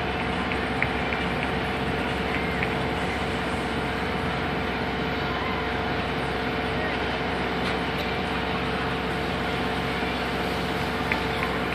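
Steady outdoor din with a constant drone carrying two steady hum tones, and faint distant voices now and then.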